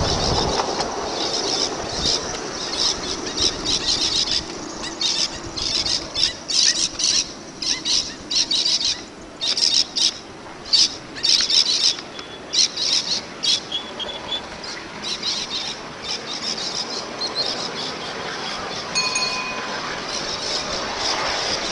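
Steel wheels of a 5-inch gauge model tram train squealing against the rails on curved track, in many short, irregular high-pitched squeals, with a brief pitched squeal near the end.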